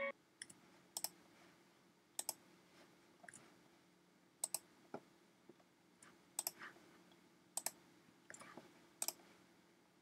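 Faint computer mouse clicks, about a dozen scattered irregularly, many in quick pairs, over a low steady hum.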